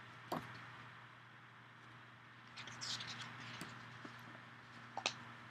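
Faint paper rustling and a couple of light clicks from a paperback picture book being handled, over a steady low hum and hiss.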